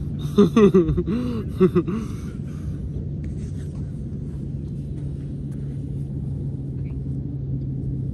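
Steady low rumble and drone of a car's interior while driving, with a constant hum. In the first two seconds a person's voice gives a brief, gliding, untranscribed exclamation.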